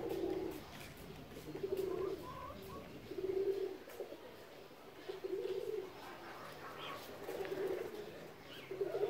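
A dove cooing: short, low coos repeated about every one and a half to two seconds.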